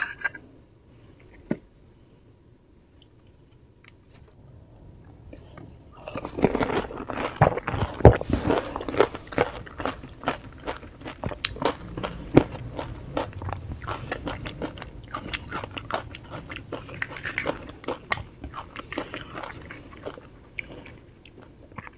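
Close-miked eating of pani puri: the crisp fried puri shell crunches and crackles under biting and chewing, mixed with wet mouth sounds. It is faint for the first six seconds, then dense crunching starts and goes on.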